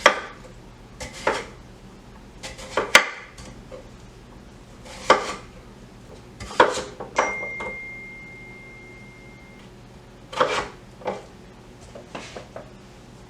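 Scattered knocks and clatter of a kitchen knife and cut potato pieces on a cutting board and bowl, about eight separate hits. About seven seconds in, something metal rings with a clear high tone for a little over two seconds.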